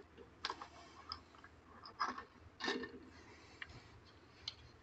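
Faint handling noise: a few soft clicks and rustles, spread out, as a diving knife and a length of fishing line are handled and the knife is set down.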